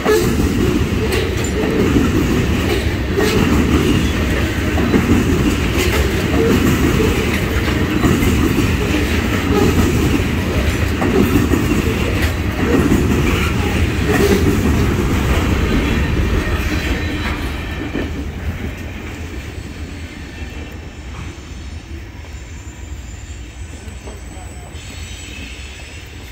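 Freight oil train of tank cars rolling past at close range: a steady rumble of wheels on rail with repeated clicks as the wheels cross rail joints. Past about two-thirds of the way in the noise fades as the last car goes by and the train moves away.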